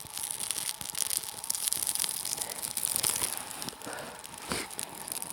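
Dry birch bark being torn and crinkled by hand, a dense run of crisp crackles that thins out after about three and a half seconds.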